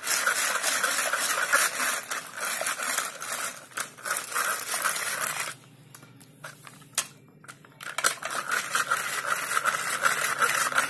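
Hand-worked rotary dal churner mashing cooked toor dal in a metal pressure cooker: a fast, busy scraping and rattling of its metal blades in the pot. The churning stops for about two seconds past the middle, with a few knocks, then starts again.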